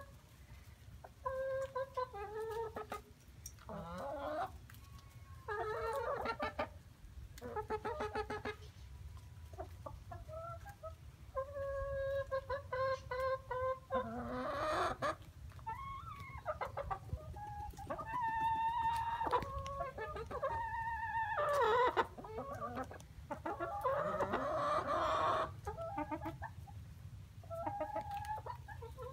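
Several hens clucking and calling, a string of short pitched calls with a few louder, harsher squawks in the middle and near the end.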